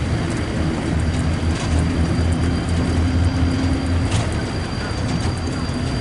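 Vehicle engine running steadily at low speed, a low even hum that grows a little stronger in the middle.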